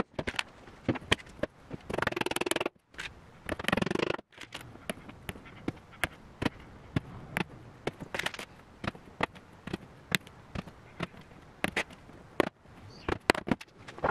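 Claw hammer driving a row of nails through a thin cabinet back panel into the shelves: a quick series of sharp taps, two or three a second. In the first few seconds there are two longer rattling stretches.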